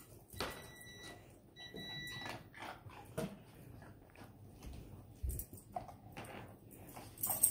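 Dog nosing and licking an ice cube on a tile floor: scattered faint clicks, taps and scrapes, with a low thump a little past five seconds. Two high, thin, steady whine-like tones sound in the first two seconds.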